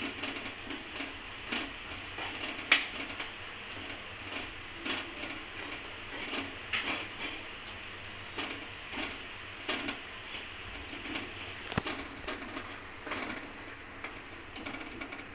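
Steel spoon scraping and tapping against a metal kadhai as grated jaggery with ghee and dry fruits is stirred continuously while it melts, with a scrape or knock every second or so.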